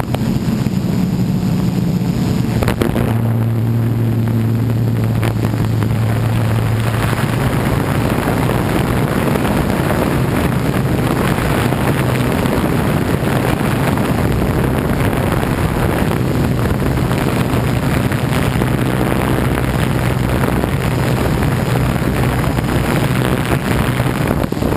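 MikroKopter quadcopter's electric motors and propellers running in flight. A steady hum dominates the first few seconds, then gives way to a rushing wind noise on the onboard camera's microphone.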